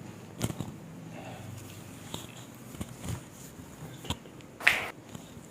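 Joints cracking during a chiropractic adjustment: a few soft clicks, then one sharp, loud crack near the end.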